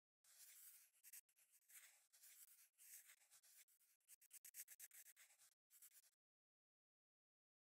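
Scratchy, hissy drawing strokes as an area is coloured in on a tablet drawing app, in a quick run of short back-and-forth strokes with brief gaps, stopping about six seconds in.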